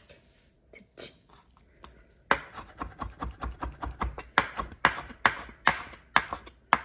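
Chef's knife slicing soaked shiitake mushrooms into fine strips on an end-grain wooden cutting board. A few soft cuts come first; then, from about two seconds in, the blade taps quickly on the board, about four a second.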